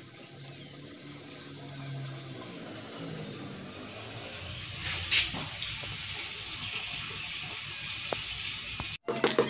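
Steady hiss of running water, with a brief louder rush about five seconds in.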